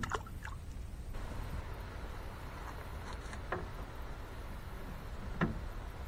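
The fading end of a splash as something hits the river's surface at the very start, then a quiet, steady low rumble with a few light knocks, about three and a half and five and a half seconds in.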